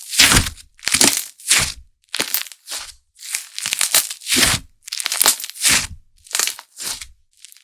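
Hands squeezing and pressing slime: a series of separate crackling squishes, one to two a second, with short silent gaps between them.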